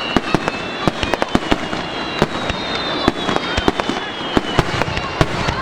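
Fireworks going off in a rapid, dense string of sharp bangs and pops, with high whistling tones sliding slowly down in pitch over them.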